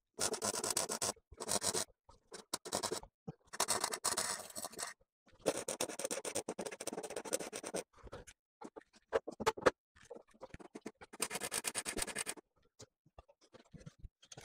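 MIG welder crackling as it welds a 2 mm steel repair plate into a car's chassis leg. The crackle comes in several runs of one to two seconds, broken by short pauses, then turns to brief spits near the end.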